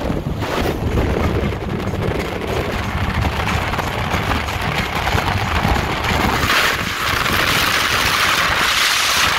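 42-foot Fountain Lightning powerboat running fast over open water: a steady engine drone under heavy wind and water rush, with the wind hiss on the microphone growing louder about two-thirds of the way in.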